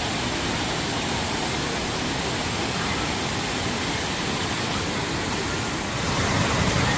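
Waterfall rushing, a steady roar of falling water that swells slightly near the end.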